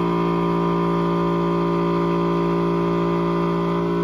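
Car engine held at steady high revs on one unchanging note during a burnout, the rear tyre spinning in smoke.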